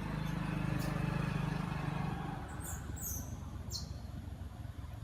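A low steady engine hum that fades out about two seconds in, then four short high chirps, each falling in pitch.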